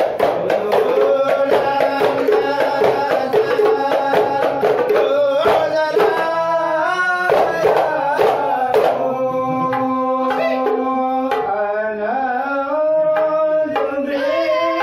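Hadrah Ishari group singing sholawat together over hand-beaten frame drums in a dense, fast rhythm. About nine seconds in the drumming thins out and the voices carry on in long held notes.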